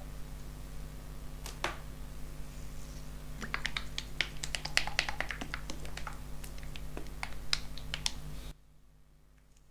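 A scattered series of light clicks and taps, thickest in the middle, from gloved hands handling a roll and utensils on a plastic serving tray. Under them runs a steady low hum that cuts off suddenly near the end.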